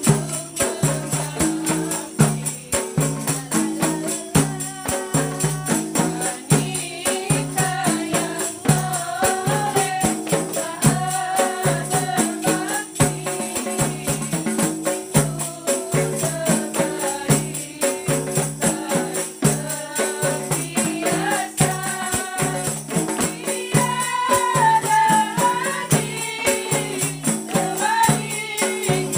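Qasidah rebana ensemble: hand-struck rebana frame drums and a larger drum beating a steady, repeating rhythm, with a woman singing a melody over them.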